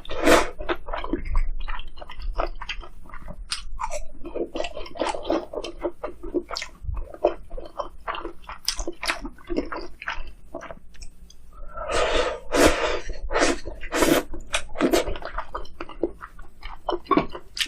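A person eating close to the microphone: irregular chewing and biting noises, with a denser run of crunchy bites about twelve seconds in.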